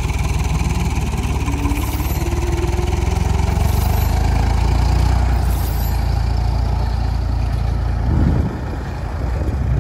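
Massey Ferguson 255 tractor's diesel engine running steadily under load; its low note drops off about eight seconds in.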